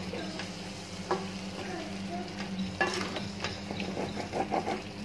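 A spoon stirring and scraping chicken pieces in thick yogurt masala in a stainless steel pot while the masala sizzles as it fries. Scrapes and knocks come now and then, with a quick run of them near the end, over a steady low hum.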